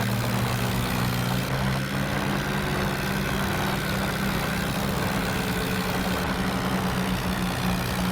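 A motor vehicle's engine running steadily at a low, even pitch.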